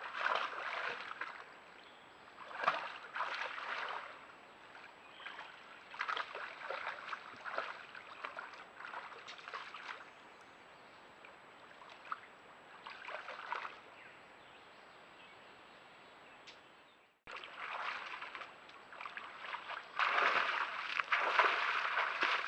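Moose wading through a shallow beaver pond, its legs sloshing and splashing the water in irregular bursts, loudest near the end.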